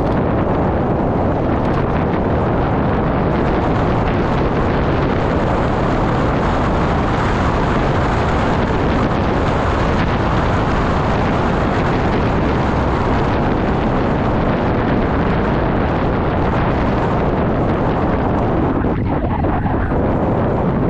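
Steady, loud wind rush buffeting the microphone of a cyclist's chest-mounted camera while riding downhill at speed on a road bike.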